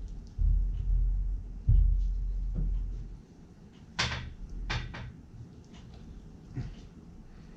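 Boning knife working a Spanish mackerel fillet on a nylon cutting board. Dull thumps and knocks come in the first three seconds, then a few sharp clicks of the blade against the board.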